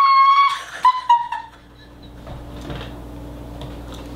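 A high-pitched squealing laugh, held steady and ending about half a second in, then two short squeaky bursts of laughter just after a second, then quieter laughter.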